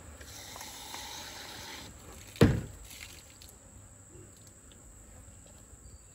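Insects chirring steadily in the background, a soft rustle over the first two seconds, and one sharp thump about two and a half seconds in.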